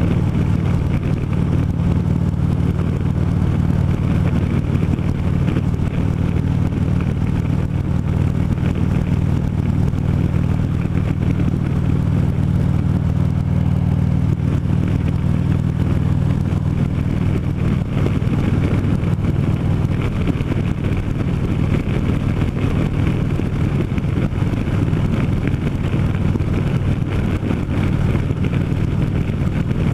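Harley-Davidson V-twin motorcycle engine running steadily at road cruising speed.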